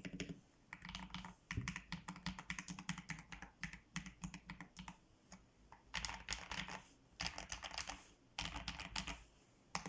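Typing on a mechanical keyboard fitted with lubed Akko CS Lavender Purple switches: quick runs of keystroke clacks broken by short pauses, with a lull about halfway through.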